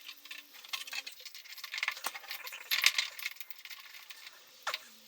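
Metal tools and hardware clinking and rattling as they are handled, in irregular light clicks with a louder cluster about three seconds in.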